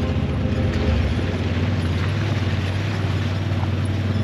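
Side-by-side UTV engine running steadily at low trail-crawling speed, a continuous low drone.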